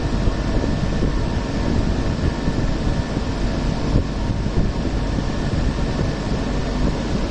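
Hong Kong Peak Tram funicular car running down the track, heard from inside the cabin: a steady rumble with a faint steady whine above it.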